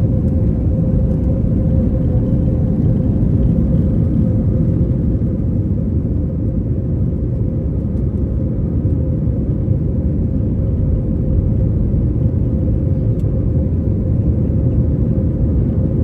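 Steady cabin noise inside an Airbus A321 jet airliner: a low rumble of engines and airflow with a faint steady hum above it.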